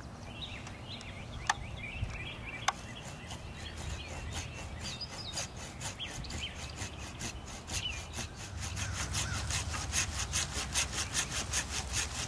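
Handsaw cutting through a crape myrtle branch: a couple of sharp knocks in the first few seconds, then back-and-forth saw strokes that grow louder and settle into about four strokes a second in the second half.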